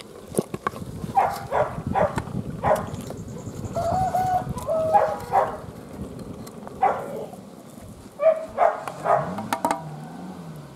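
Chickens clucking in short, repeated calls, over the scrape and stir of a wooden ladle through cooked dal in an aluminium pot.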